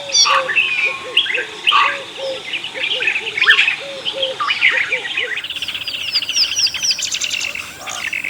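Several wild birds chirping and calling at once, a dense mix of short whistles and chirps over a repeated low two-note call. About five seconds in the mix changes abruptly to a fast buzzy trill and a run of quick falling chirps.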